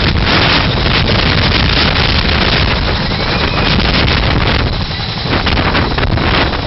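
Boeing CH-47 Chinook tandem-rotor helicopter flying low and close, its rotors and turbine engines loud and steady, easing slightly near the end.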